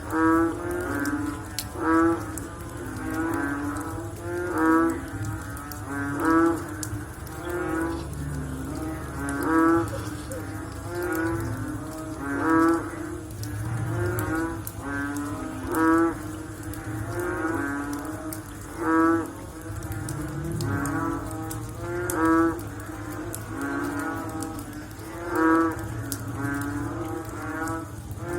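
Frogs calling: one loud, pulsed, lowing croak repeats about every one and a half seconds, with fainter calls from other frogs overlapping in between. A thin high steady tone runs under them and stops about two-thirds of the way through.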